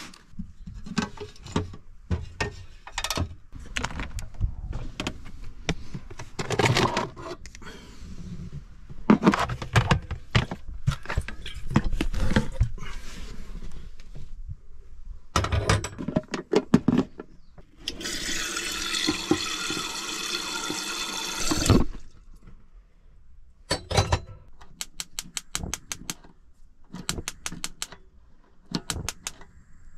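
Knocks and clatter of things being handled in a small room. About eighteen seconds in, water rushes for about four seconds, and a quick run of light clicks follows near the end.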